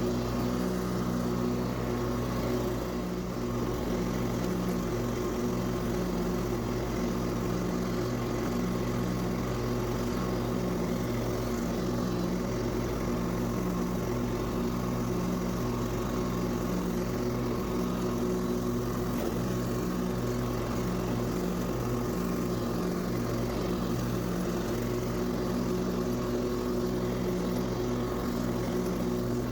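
Husqvarna lawn mower engine running steadily while cutting grass, its hum holding an even pitch and level.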